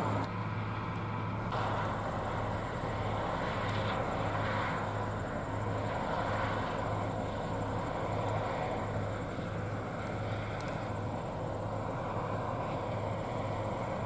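Steady engine hum of harvest machinery: a New Holland CR9040 combine working a soybean field with a tractor and grain cart running alongside, a constant low drone with no changes in pace.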